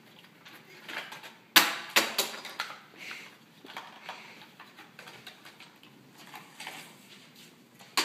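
Handling noise from a plastic toy truck being freed from its cardboard packaging: small clicks, taps and rustles, with two sharp knocks about one and a half and two seconds in and another at the very end.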